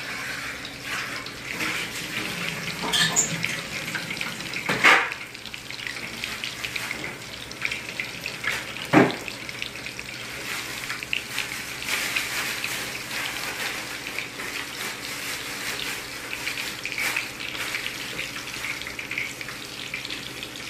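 A tap running into a metal sink, with a couple of sharp knocks, then tandoori-marinated chicken pieces deep-frying in a wok of hot oil, a steady sizzle.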